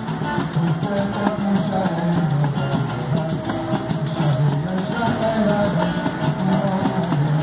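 Live acoustic samba music: acoustic guitar playing with hand drums in a steady beat.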